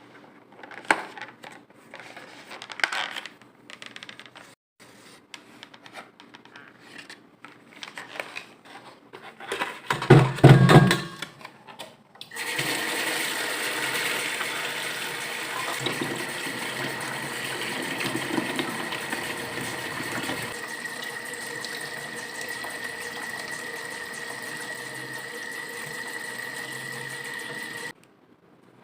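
Scattered knocks and handling noises with a loud bump near ten seconds, then a small motor that starts suddenly about twelve seconds in, runs steadily with a whirring tone and cuts off near the end.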